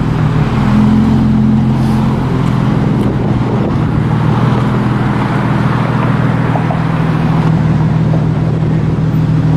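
Infiniti G35's VQ35DE 3.5-litre V6 running at a steady engine speed, a loud, even exhaust drone from an exhaust with a large leak.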